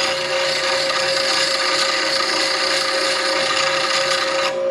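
8-inch slow-speed (1800 RPM) bench grinder running with a steady hum while a steel bowl gouge is ground against the wheel, giving a continuous hissing grind. The grinding stops shortly before the end while the motor keeps humming.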